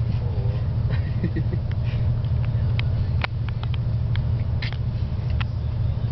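Bus cabin noise: the steady low drone of the engine and tyres heard from inside, with scattered light clicks and rattles.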